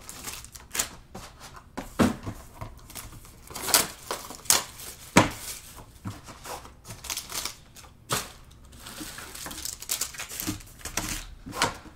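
Card packs in gold foil wrappers being pulled from a cardboard box and stacked by hand: irregular crinkling and rustling of foil and card, broken by sharp clicks and taps as the packs are set down.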